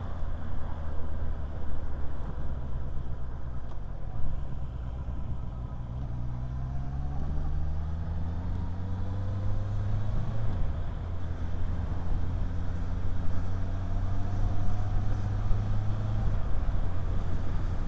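Motorcycle engine heard from inside the rider's helmet, pulling up through the revs for several seconds, dropping at a gear change about ten seconds in, then running steadily and easing off near the end. Wind noise comes in through the open visor.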